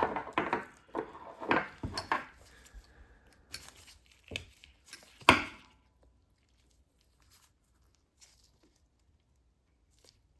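Sharp metallic clicks and clinks of orthodontic pliers working 0.7 mm stainless steel wire, a string of them over the first six seconds with the loudest about five seconds in, then only a couple of faint ticks.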